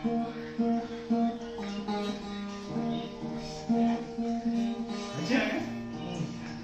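Acoustic guitar being played by hand, a slow run of chords with the notes ringing on.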